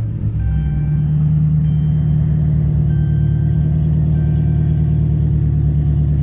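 Straight-piped 5.7 L Hemi V8 of a Chrysler 300C, a true dual 3-inch exhaust with no mufflers, resonators or cats, droning loudly at a steady engine speed while the car is driven.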